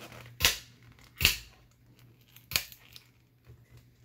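Plastic rivets of an HP Pavilion x360 palm rest snapping as the keyboard back plate is pried off by hand: three sharp pops over about two seconds, followed by a few fainter clicks.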